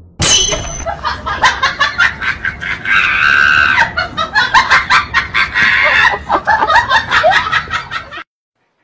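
A person shrieking and laughing hard, loud and high-pitched, in quick repeated peals with one long held scream about three seconds in; it cuts off suddenly near the end.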